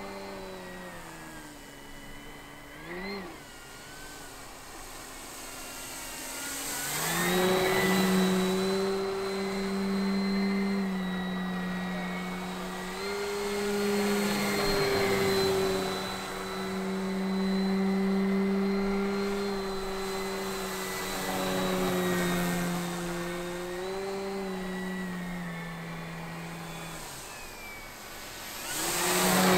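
E-flite Carbon-Z Cessna 150 Aerobat RC plane in flight, its electric motor and propeller giving a steady hum. The pitch steps up and down with throttle changes, and the sound swells louder as the plane passes close, about seven seconds in and again near the end.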